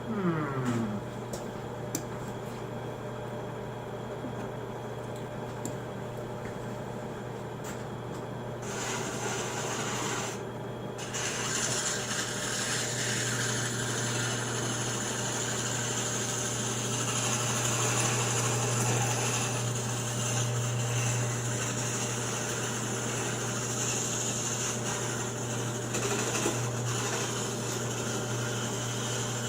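A drill press runs with a steady motor hum, spinning a welded steel pin while a hand file is held against it. The file scrapes and hisses on the turning metal, louder from about ten seconds in, as the pin is turned down to size.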